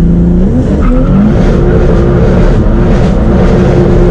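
Volvo 740 sleeper's engine pulling hard under acceleration, heard from inside the cabin, very loud, its pitch rising in the first second and then holding.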